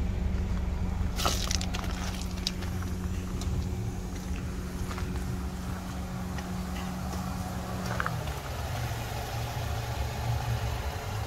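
A car engine idling with a steady low hum that drops to a lower pitch about eight seconds in, with a few crunching footsteps on gravel.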